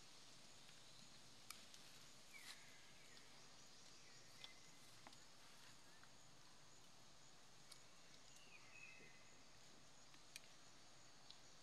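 Near silence: faint outdoor ambience with a steady high hiss, broken by a few soft clicks and several short, faint high chirps, one about two seconds in and another near the middle.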